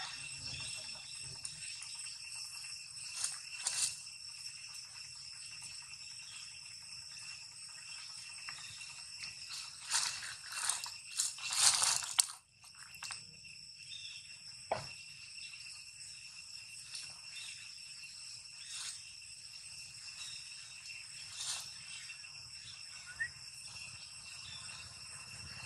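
Steady high-pitched insect drone, with scattered rustling and crunching noises that are loudest in a cluster about ten to twelve seconds in, and a single sharp click a little later.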